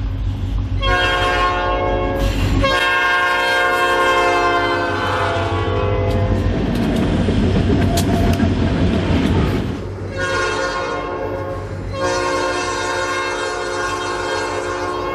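A Clyde-built EMD SD50S diesel locomotive's air horn blowing a series of long chords for the grade crossing. A loud rumble of engine and wheels comes through the middle as the train passes close, then two more long horn blasts follow.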